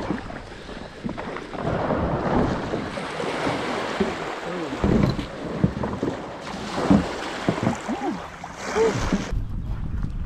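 Kayak paddle strokes splashing in lake water, with wind buffeting the microphone. About nine seconds in, the splashing cuts off and only a low wind rumble remains.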